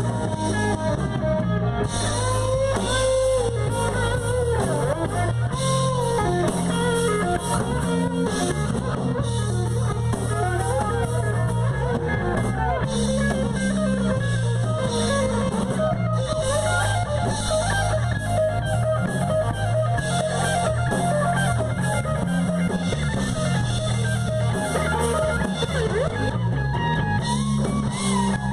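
Live band playing an instrumental passage: guitar over a drum kit, steady and loud.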